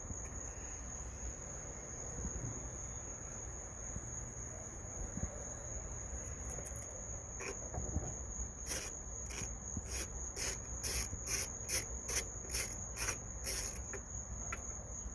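Insects, crickets by their sound, making a steady high-pitched drone. About two-thirds of the way in, a run of about a dozen short clicks comes at about two a second, louder than the drone.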